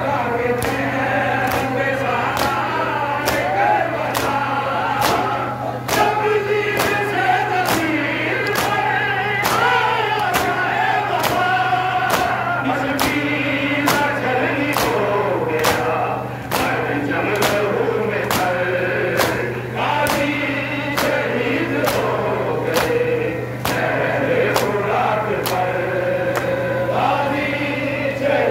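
A group of men chanting a nauha, a Muharram lament, in unison, kept in time by rhythmic matam (hand slaps on the chest) at a little over one a second. A steady low hum runs underneath.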